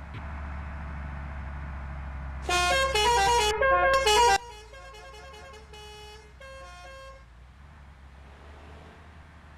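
A short tune of quick, clear pitched notes, loud for about two seconds, then going on more faintly for about three seconds, over a steady low hum.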